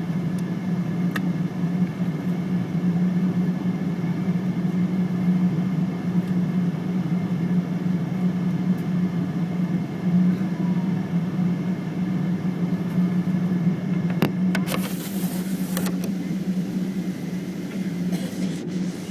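Boeing 777 jet engines and airflow heard from inside the cabin: a loud, steady drone with a strong low hum. Short hissy bursts come in about two-thirds of the way through and again near the end.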